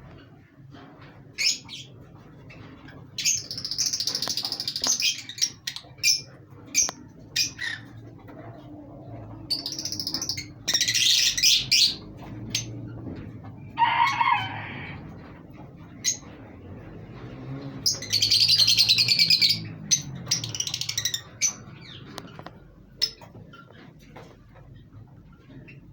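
Pet lovebirds calling: several shrill, chattering bursts lasting a second or two each, with sharp single chirps in between.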